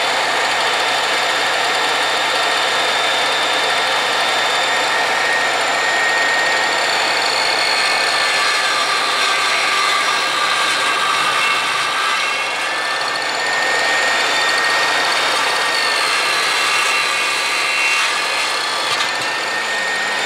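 Electric mitre saw running with a high whine, its blade cutting through a wooden plank. The pitch dips slightly about halfway through and again near the end.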